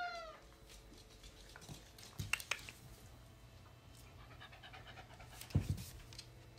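A dog panting faintly, with the end of a cat's meow falling away at the start. There is a short low thump about five and a half seconds in.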